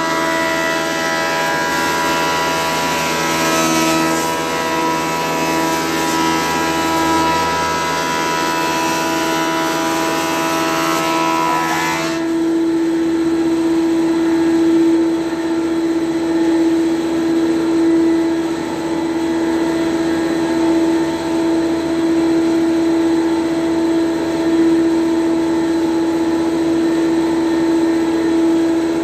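20-inch (500 mm) Colombo ACS thickness planer running with a steady hum, with a harsher cutting noise over it. The cutting noise cuts off abruptly about twelve seconds in, leaving the machine running on its own.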